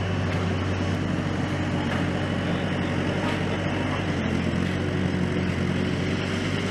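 Bobcat S130 skid-steer loader's diesel engine running steadily, a low even drone.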